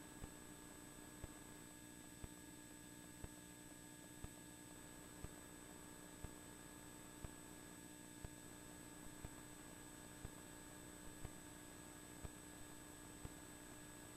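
Near silence: a faint steady hum with a faint tick about once a second.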